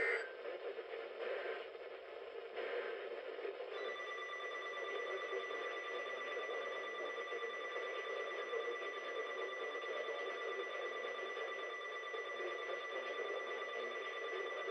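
Emergency Alert System data bursts, one loud and two fainter, the end-of-message signal of a weather radio broadcast, followed about four seconds in by a steady, slightly pulsing electronic alert tone over background hiss.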